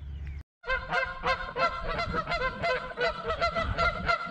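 Geese honking in a continuous series, several calls a second, beginning just after a short drop-out about half a second in.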